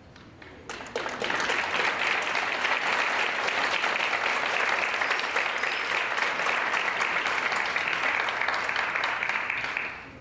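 Concert audience applauding: the clapping starts about a second in, holds steady and full, and dies away near the end.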